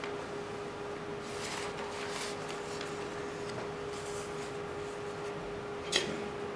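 Paper flyers and folders rustling as they are handled, over a steady hum, with one sharp click about six seconds in.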